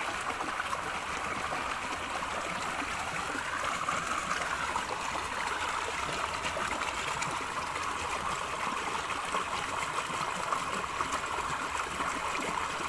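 Small river flowing and gurgling steadily over shallows.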